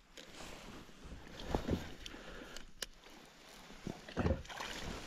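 Water sloshing around a fishing kayak, with a few low thumps and one sharp click about three seconds in.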